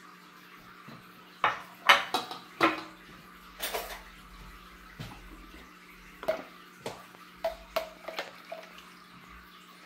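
Kitchenware clattering: metal tongs and dishes clinking against a stainless steel bowl. A few sharp knocks come between about one and a half and three seconds in, followed by lighter taps and clicks.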